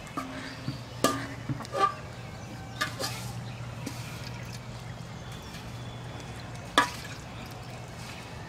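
Handling an aluminium pot and metal plate while making flour bait: a few sharp clinks and knocks, the loudest near the end, with small splashes of water tipped from the pot onto the flour. A steady low hum runs underneath.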